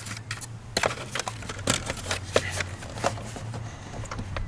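Irregular light clicks and taps of a small flathead screwdriver working a screw deep in the engine bay, over a steady low hum.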